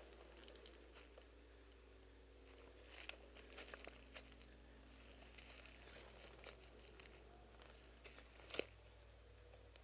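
Faint rustling and crackling of dry brush and twigs as someone moves through them, with a single sharper snap near the end.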